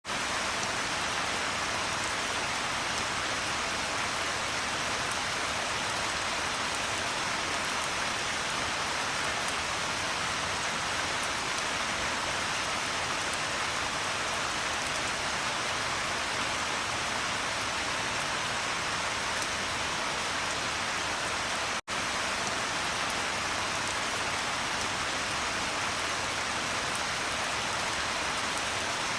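Steady, even rain falling. The hiss cuts out for a split second about three quarters of the way through, then carries on.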